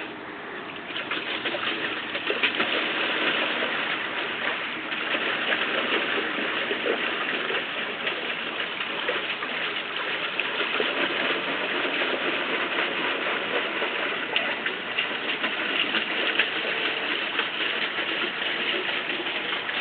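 Steady splashing and churning of water, a dense rain-like patter of small drops.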